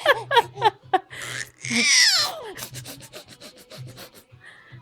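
Funny vocal noises: quick squeaky sounds bending up and down, then about two seconds in a long squeal falling steeply in pitch, followed by a run of quick raspy puffs at about five a second.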